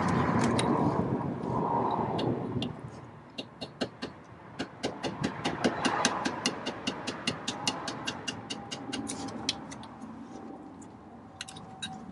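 Ratchet wrench clicking in quick, even runs of several clicks a second as the lock screw in a Dana 35C differential carrier is turned with a 1/4-inch socket. A steady rushing noise fills the first two to three seconds.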